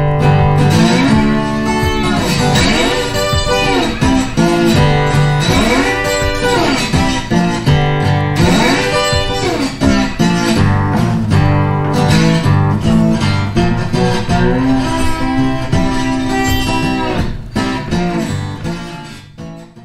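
Background music led by guitar, with notes that slide up and down; it fades out near the end.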